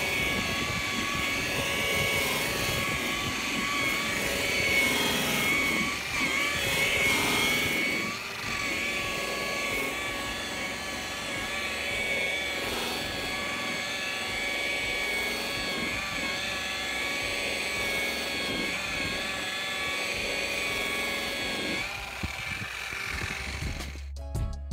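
Makita electric polisher running a cloth buffing wheel against a polished aluminium wheel rim: a steady motor whine with the scuff of the buff on the metal, its pitch wavering a little under load. The sound cuts off right at the end.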